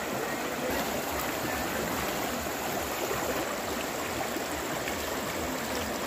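Muddy floodwater rushing across a road in a steady, even rush.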